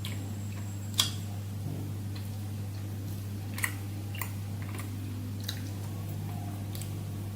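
Someone eating sticky barbecue ribs: a few scattered sharp mouth smacks and clicks, the clearest about a second in, over a steady low hum.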